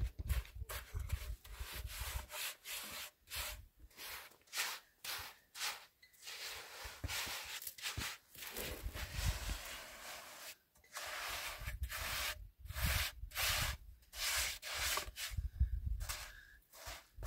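A steel hand trowel scraping through a pile of cement and sand on gritty ground, in repeated irregular scraping strokes of about one or two a second.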